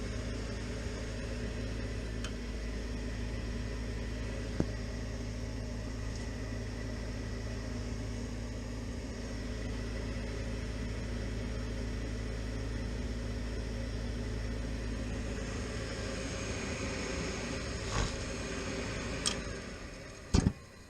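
Furnace draft inducer motor running with a steady hum, powered through a control-board relay that makes contact only when pushed by hand, a sign of an internal fault in the relay. Near the end there are a few sharp clicks and the motor winds down and stops.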